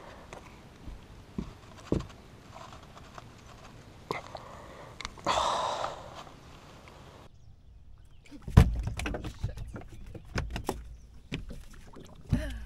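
Handling noises while a smallmouth bass is unhooked and held on a bass boat: irregular small clicks and knocks, with a loud thump about eight and a half seconds in.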